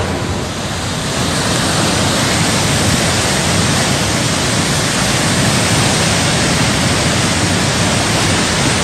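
Loud, steady rushing of water: an even hiss with no breaks.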